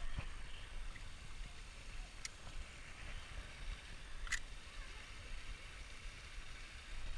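Steady low rumble of water running over a small spillway, with two sharp clicks about two and four seconds in from the spinning reel being worked during a cast.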